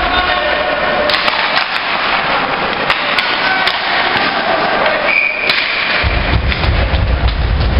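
Ice hockey play: skates scraping the ice and wooden sticks clacking against each other and the puck in a steady run of sharp knocks. A brief high whistle sounds about five seconds in, and a low rumble sets in about a second later.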